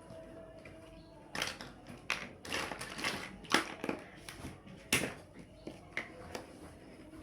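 Plastic building blocks being handled and snapped together, a run of irregular sharp clicks and knocks starting a little over a second in.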